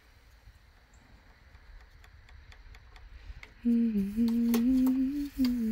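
A person humming a few notes of a tune, starting about two-thirds of the way in, with the pitch stepping up and down and a short break in the middle. Before it there are only faint light clicks.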